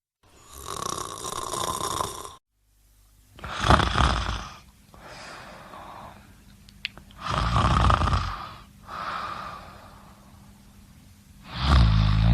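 A sleeper snoring: loud rasping snores about every four seconds with softer breaths between them, the last one deeper and more drawn out.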